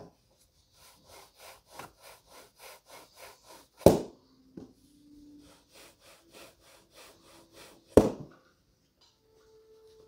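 Shoe-shine cloth buffing leather loafers: quick back-and-forth rubbing strokes, about three a second, in the final polishing stage. Twice, about four and eight seconds in, the cloth snaps taut with a loud crack.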